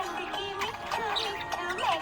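Background music with a wavering melody line and a steady held tone near the end.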